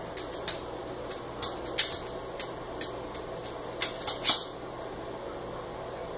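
Scattered light clicks and taps, a handful of them at irregular intervals with the sharpest about four seconds in, over a steady low room hum.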